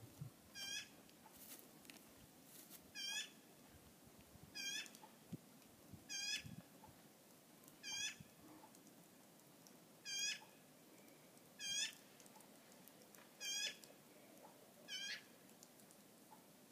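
Black-billed magpie squawking over and over while mobbing a moose, short calls of a second or less repeated about every one and a half to two seconds, nine in all.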